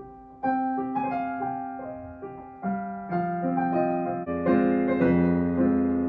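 Background piano music: a slow melody over held chords, getting fuller and louder toward the end.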